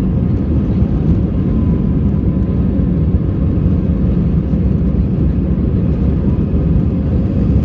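Airbus A320 on its takeoff roll, heard inside the cabin: jet engines at takeoff thrust and runway rumble make a loud, steady low noise with a faint whine above it.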